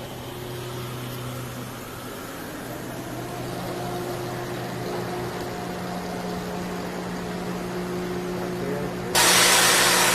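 Automated conveyor line machinery running with a steady, multi-toned motor hum. Near the end a loud hiss starts suddenly over it.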